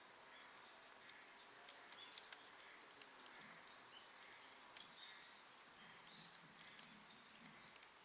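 Faint, high bird chirps scattered through, with a few soft ticks clustered a couple of seconds in, over a steady quiet hiss.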